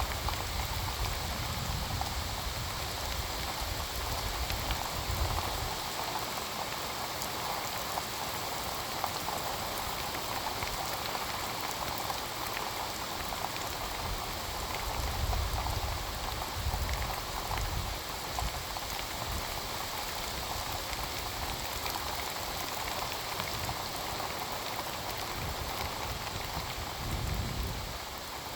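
Heavy rain falling steadily, a dense even hiss of a downpour. A few low rumbles rise under it near the start, around the middle and near the end.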